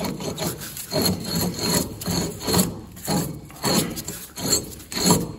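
Allis-Chalmers D17 front wheel hub being twisted back and forth on its spindle: about eight rhythmic gritty scraping strokes as the seized hub grinds over the dirt- and rust-packed bearing.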